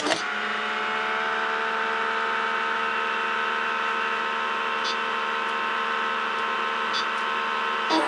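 PM600 pump's motor running with a steady whirring hum while it dispenses. A click at the start, and another near the end as the start/stop key is pressed.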